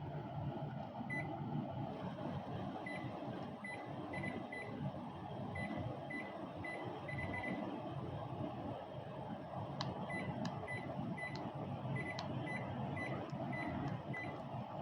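Split air conditioner beeping: about twenty short, identical high beeps come in two quick runs, the way the indoor unit answers each press of its remote. A few sharp ticks fall in the second run. A steady low rumble runs underneath.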